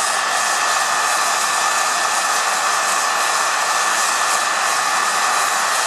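Heat gun blowing a steady rush of hot air up through a flour-sifter coffee roaster, with a cordless right-angle drill turning the sifter's crank and a thin steady whine. Mid-roast, before first crack: no popping yet.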